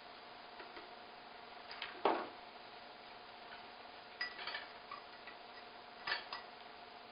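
Light clicks and clinks of kitchen utensils and containers as ingredients are measured out, in three small groups about two seconds apart, over a faint steady hum.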